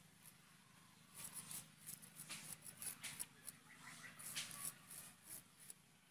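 Small spotted snakehead fish being scraped and cut against the curved iron blades of two floor-standing bontis: faint, irregular rasping scrapes that begin about a second in, over a low steady hum.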